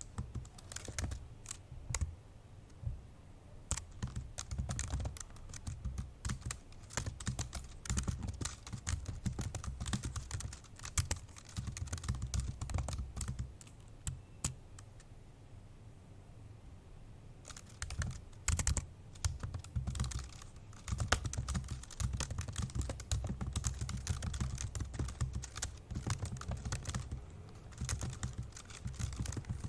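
Fast, forceful typing on an old MacBook Pro's built-in keyboard, a dense clatter of key clicks. It starts with a few scattered keystrokes, thins out to sparse taps for a few seconds around the middle, then picks up into rapid typing again.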